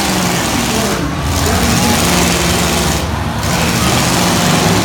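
Demolition derby car engines running hard and revving together, a loud, continuous mix of engine noise that rises and falls in pitch.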